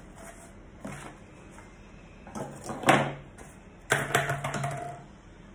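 Objects being handled on a wooden tabletop: a light click, then two sharper knocks a second apart, the second followed by a brief scrape as something is slid across the table.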